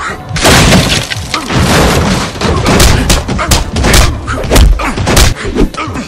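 Rapid series of punch and body-impact sound effects, a dozen or so hard hits in quick, uneven succession, dubbed over a fist fight. A longer crashing noise runs from about half a second to a second and a half in.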